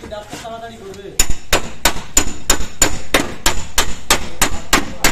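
Hammer blows on car body sheet metal, about three a second, starting about a second in, each with a short metallic ring: panel beating to knock out dents.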